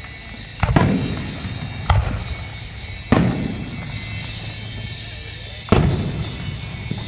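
Aerial fireworks shells bursting in the sky: four sharp bangs, each trailing off in an echoing rumble. The first three come about a second apart and the fourth after a longer pause.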